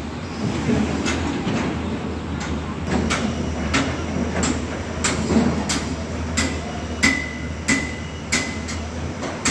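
Steady hammer strikes on metal, about one and a half a second, growing louder, with a ringing tone after several blows toward the end. Under them runs the low, steady hum of an engine.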